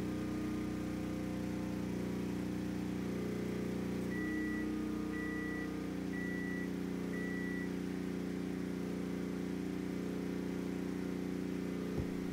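Westinghouse WPRO8500 portable generator's single-cylinder engine running steadily under a heavy household load. About 4 seconds in, a microwave oven beeps four times as its cycle ends, and the engine's note shifts slightly as that load comes off and the generator's speed picks up.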